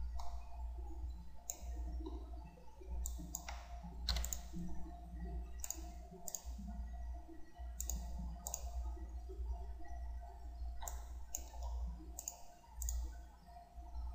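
Computer mouse clicking irregularly, about a dozen short clicks over a steady low hum.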